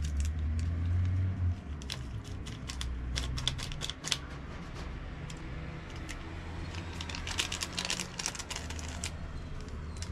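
Paper sachets of baking powder being torn open and emptied, crinkling and crackling in two bursts of quick clicks, about two seconds in and again near eight seconds.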